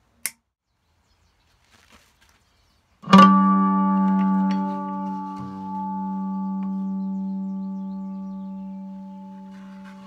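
Hubcap Howler three-string cigar box guitar struck once about three seconds in, its chord ringing out and slowly fading. A sharp click comes shortly before.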